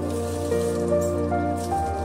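Background music with held notes that step from one pitch to the next over a steady bass. Beneath it is a faint crackle of beer-and-beef stew sauce bubbling in a frying pan.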